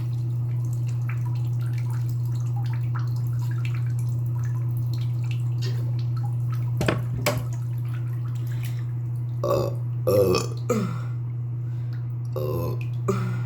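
A person burping several times in the second half: a short burp, then a longer, louder one, then two more near the end. A steady low hum runs underneath.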